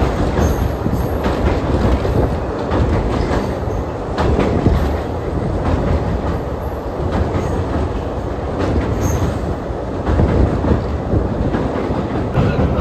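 Indian Railways passenger train running over the sea on the New Pamban Bridge: a steady rumble of wheels on the track with irregular clatter. Now and then a brief high squeal from the wheels.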